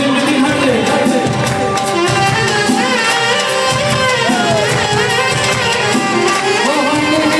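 Live tallava music played loud, a wavering melody line over a steady beat, with the crowd clapping along.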